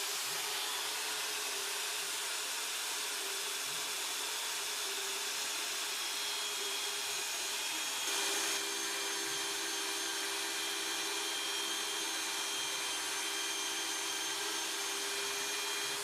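Shopsmith Mark V powering its bandsaw attachment, running steadily with a constant motor whine; the sound shifts slightly about eight seconds in.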